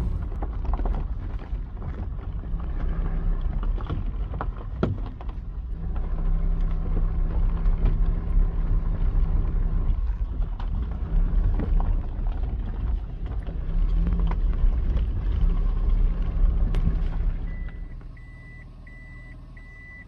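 A motor vehicle's engine and road rumble with a low hum that swells and eases. Near the end the rumble drops and a run of about five short, evenly spaced high electronic beeps sounds.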